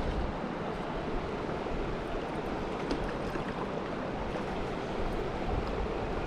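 Mountain stream water rushing steadily over rocks, a constant even wash.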